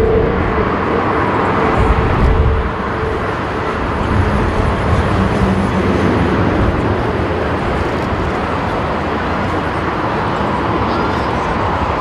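Emirates Airbus A380-861 climbing away on a go-around, its four Engine Alliance GP7200 turbofans giving a steady jet roar with a deep rumble, easing slightly about two and a half seconds in.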